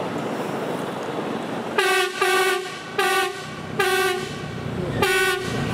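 Horn of a track-inspection train sounded in five short toots, beginning about two seconds in, over steady running noise.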